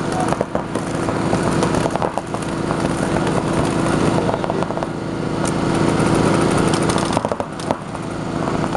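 Paintball markers firing rapidly and continuously, a dense fast rattle that holds steady, with a brief dip about seven seconds in.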